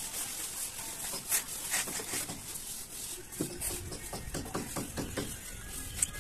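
Hand float rubbing over fresh cement plaster on a wall: rough scraping strokes, scattered at first, then a quicker run of strokes in about the second half.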